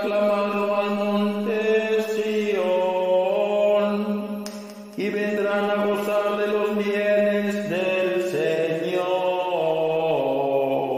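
Music of a sung psalm: a slow, chant-like melody over a held low note, in two long phrases. The second begins about five seconds in, and the pitch steps down near the end.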